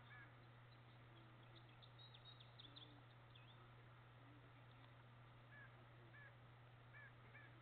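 Near silence: faint outdoor ambience with distant bird calls, a run of short repeated calls at the start and again from about five and a half seconds in, a few faint high chirps in between, over a steady low hum.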